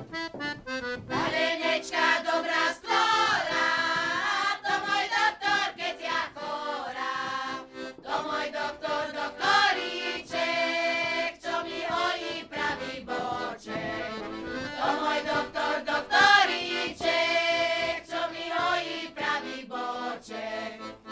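An accordion plays a folk tune, with several voices singing along.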